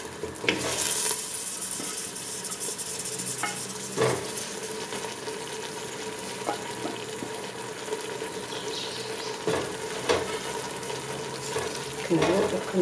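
Sliced onions, carrots and turnips sizzling in oil in a stainless steel pot while a wooden spoon stirs them, with a few knocks of the spoon against the pot.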